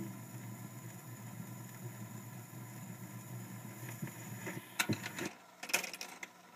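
Surface hiss and crackle of a 78 rpm shellac record playing on after the music ends, over a faint low hum. Near the end come a few sharp clicks, and the hum cuts off.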